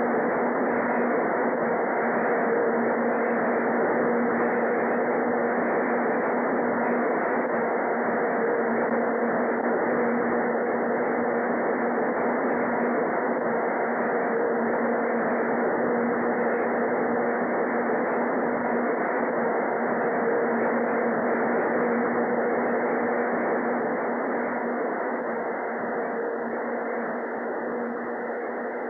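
Elevated train running: a steady, even rumble of cars on the track with a constant low hum through it, slowly fading over the last few seconds.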